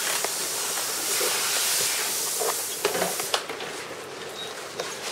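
A steady, high-pitched hiss that cuts off suddenly about three and a half seconds in, followed by a few light clicks.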